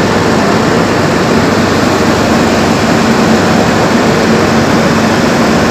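Steady engine drone with a faint low hum, running evenly and unbroken.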